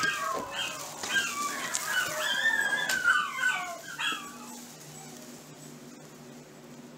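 Several miniature schnauzers howling together, overlapping high wavering calls that rise and fall in pitch, a chorus of howling at the owner's return. The howling dies away about four seconds in, leaving a faint steady hum.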